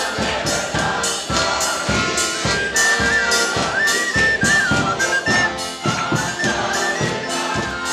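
A live band playing upbeat dance music: a steady drum and cymbal beat under a wavering lead melody.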